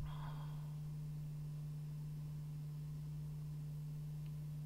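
A steady low hum, one unchanging tone, with a brief knock and a short rustle right at the start.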